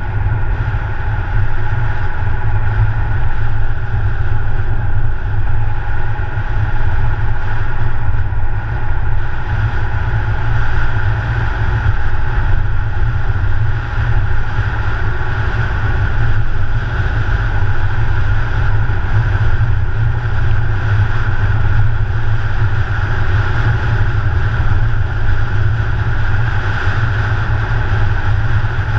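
Car driving at a steady speed, heard through a camera mounted outside on the bonnet: dense wind rumble and tyre-on-asphalt road noise, with a steady engine hum underneath and no change in pace.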